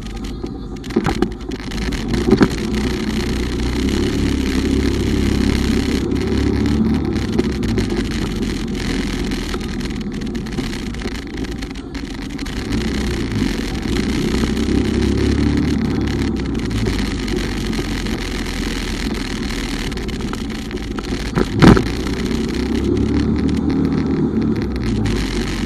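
Bumoto Regnum motorcycle engine running under way, its note swelling and easing with the throttle over a steady bed of road and wind noise. A few short sharp knocks break through, the loudest near the end.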